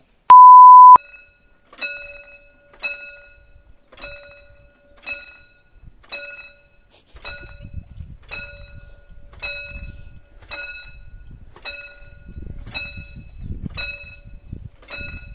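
Mechanical railway-crossing ringer bell (předzváněč) striking about once a second, the warning that the hand-worked barriers are about to be lowered. A short, loud, single-pitch beep sounds just before the ringing starts.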